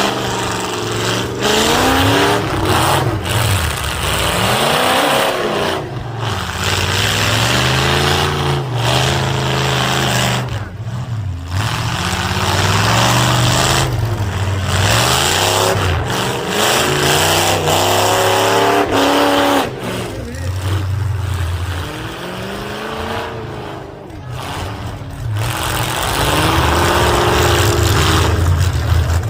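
Demolition derby car engines revving hard again and again, pitch climbing and falling back, several cars at once.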